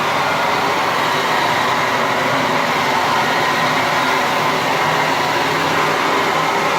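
Leaf blower/vacuum running steadily in vacuum mode: a loud, even rush of air that keeps up without a break.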